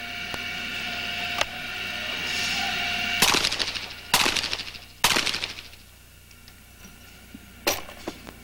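Handgun shots on an outdoor pistol range: three loud reports about a second apart, each ringing out, with a sharper crack near the end. A steady whine runs before the shots and stops as they begin.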